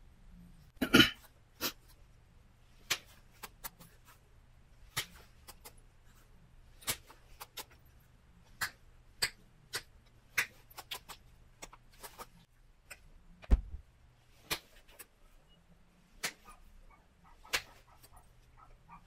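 Pressure flakes snapping off a Wyoming tiger (oil) chert point under a bison pressure flaker: sharp, irregular clicks about one or two a second, the loudest about a second in, with a single low thump about two-thirds through.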